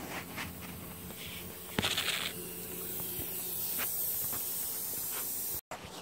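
Hand and tool handling noise: a few light clicks, then a knock and a short scraping rustle about two seconds in, over a steady hiss. The sound cuts off abruptly near the end.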